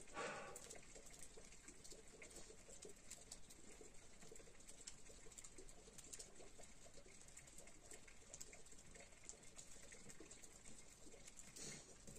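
Near silence, with faint, irregular ticks and patter of meltwater dripping from the snow-laden pine trees as the snow thaws in the sun.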